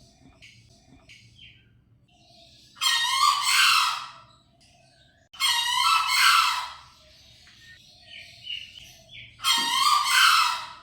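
Male green junglefowl crowing: three loud, harsh, hoarse calls, each about a second and a half long and about three seconds apart, with faint small-bird chirps in between.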